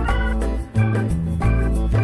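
Upbeat jazzy organ music with a bass line and a steady beat.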